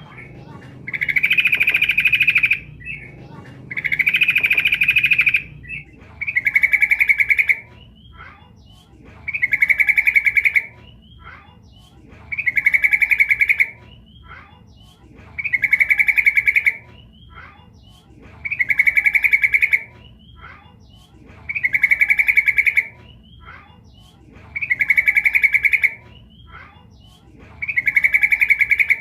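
Female yellow-vented bulbul (trucukan) giving a call for a male: a rapid, trilled chattering phrase of about a second and a half, repeated about every three seconds, with faint chirps between.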